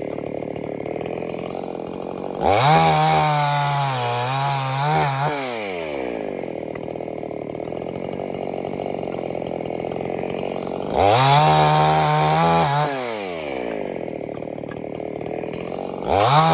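Gasoline chainsaw idling, then revving up to full throttle three times, about 2.5 s in, about 11 s in and again near the end. Each burst is held for two to three seconds as it cuts through scrap lumber boards, then the engine drops back to idle.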